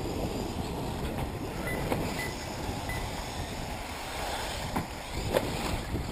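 1/8-scale electric off-road RC buggies running on the track: a steady rush of noise with a few sharp knocks, about two seconds in and twice near the five-second mark, the last the loudest.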